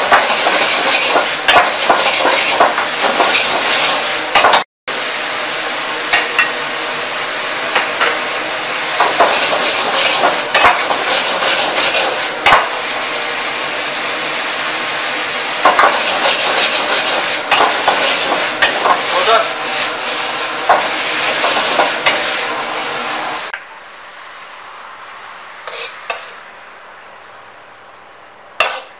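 Beef and bean sprouts sizzling hard in a steel wok, with frequent clanks and scrapes of the metal ladle against the pan as the food is tossed. About 23 seconds in, the sizzling stops abruptly, leaving a few soft clinks of the ladle as the food is served onto a plate.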